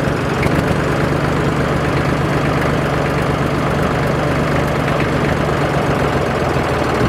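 Massey Ferguson 35 tractor's diesel engine running steadily with the hand throttle raised above idle while the engine is still cold.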